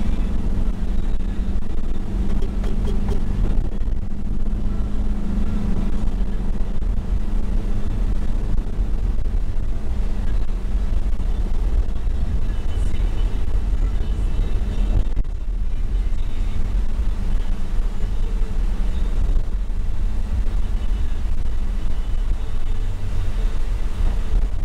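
Toyota HiAce Commuter van heard from inside the cabin while driving: a steady engine hum over low road rumble.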